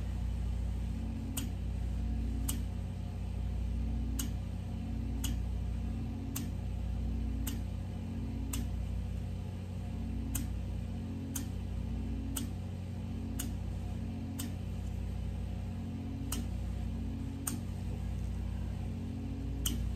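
Microdermabrasion machine's suction pump humming steadily as the wand works the skin, with a sharp click about once a second.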